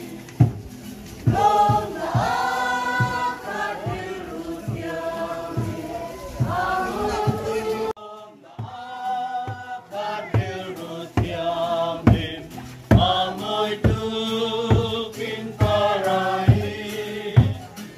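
A group of voices singing a hymn together over a steady drumbeat, with a brief break about eight seconds in.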